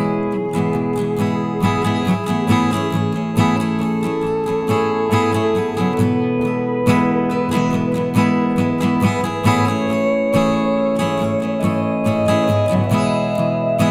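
Background music: strummed acoustic guitar with steady sustained notes.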